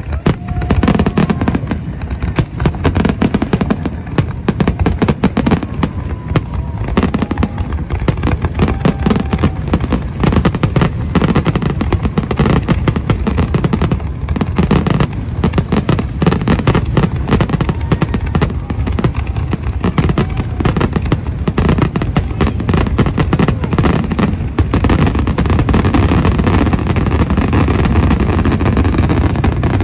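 Aerial fireworks bursting in a rapid, unbroken barrage of booms and crackling, the shots overlapping with no pauses, getting denser toward the end, as in a show's finale.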